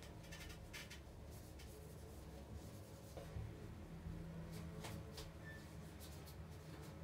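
Faint rubbing of a cleaning cloth on window glass, in a scatter of short strokes over a low steady hum.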